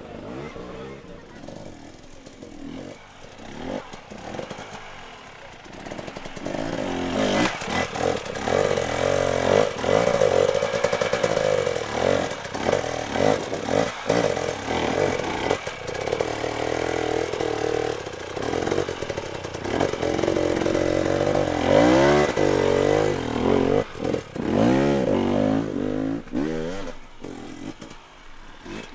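Hard enduro motorcycle engine revving in repeated bursts, its pitch rising and falling as the bike is worked up a steep rock climb. Quieter for about the first six seconds, then loud.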